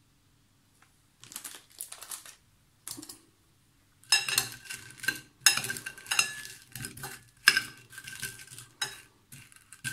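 Metal spoon stirring apple quarters in a glass bowl, clinking and scraping against the glass, which rings at each knock. The clinking starts about four seconds in, after a quiet start with a few faint taps.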